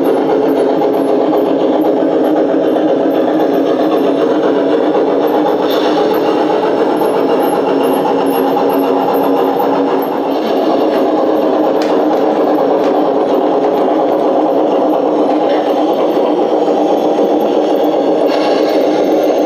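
LGB G-scale model train running steadily on a test run, its electric motor and gearing giving a constant mechanical drone that dips briefly about halfway through.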